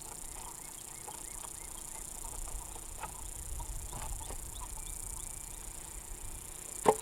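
Outdoor rural ambience: a steady high insect buzz with scattered faint clicks and bird chirps, and one sharp knock near the end.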